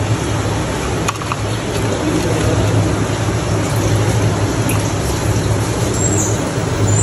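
Steady hiss-like background noise with a low hum, like a fan running, with a single click about a second in.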